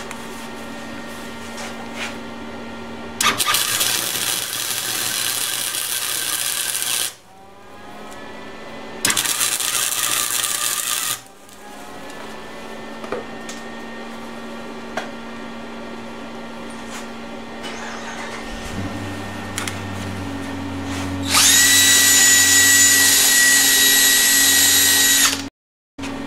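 Wire-feed (MIG) welder arc crackling in two bursts, about four seconds and then two seconds long, while welding a steel go-kart exhaust header. Near the end a cordless drill with a wire wheel brush spins against the metal for about four seconds with a steady whine, then stops abruptly.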